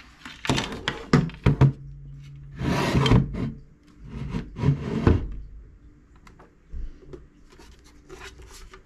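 Handling noises as a small solar panel with a metal mounting frame and a plastic electric-fence energiser are turned over and lifted on a wooden desk: several sharp clicks and knocks, then a longer scrape about three seconds in and another about five seconds in, fading to a few small clicks.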